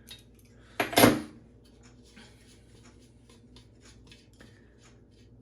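A loud metallic clank about a second in, then faint irregular clicks and scrapes of an adjustable wrench working the nuts that hold a bathroom exhaust fan motor to its metal plate.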